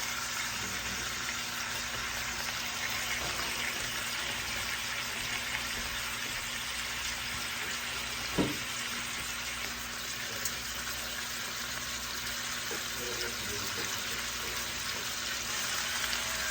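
Chicken frying in bacon grease in a pan, a steady sizzle, with one sharp knock a little past the middle.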